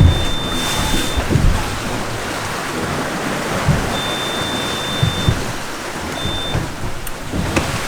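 Wind and water rushing on the microphone, with a high electronic alarm beep from the engine control panel sounding three times, two long and one short. The port engine does not crank because its battery is dead.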